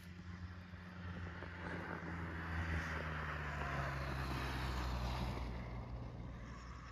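A motor vehicle drives past: its engine hum and tyre noise grow louder, peak midway, then fade as the engine note drops slightly.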